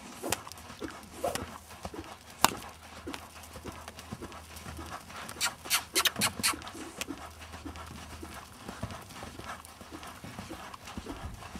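Hoofbeats of a yearling stallion trotting and loping on the sand footing of a round pen: irregular soft thuds, with one sharper knock about two and a half seconds in and a run of louder strikes around six seconds in.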